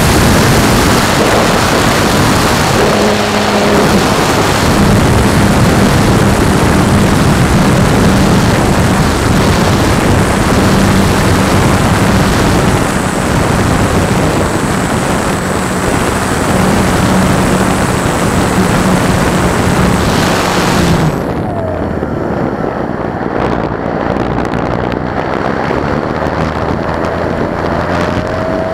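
Electric motor and propeller of a Thermal Rider EP RC glider, heard from a nose-mounted camera in flight: a steady motor hum under loud wind and prop hiss. About two-thirds of the way through the motor is throttled off and the hiss drops away abruptly, leaving softer wind noise as the unbraked propeller freewheels instead of folding.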